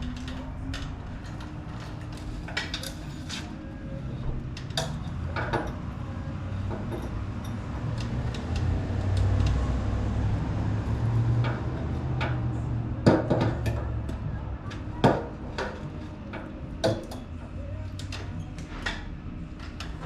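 A low steady hum that swells in the middle, with scattered metallic clinks and knocks of a chain and hook. The loudest knocks come about two-thirds of the way in.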